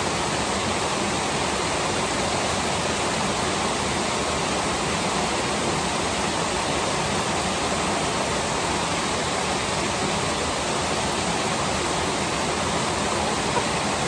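Small waterfall cascading over rock ledges: steady rushing water.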